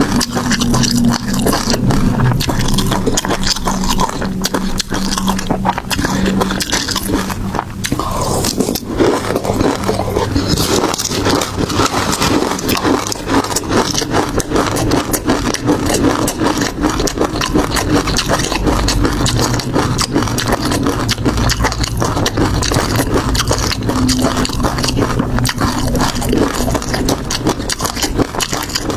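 Close-miked eating of seafood: wet chewing, biting and crackling, with dense clicks throughout.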